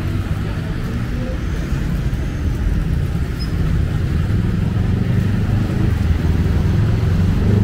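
Road traffic: a motor vehicle's engine rumbling close by, growing louder through the second half.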